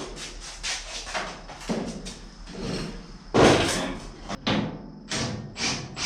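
A series of knocks and bangs from the steel body of a 1930 Ford Model A being moved while it sits off its frame. The loudest bang comes about three and a half seconds in, followed by several quick sharp knocks near the end.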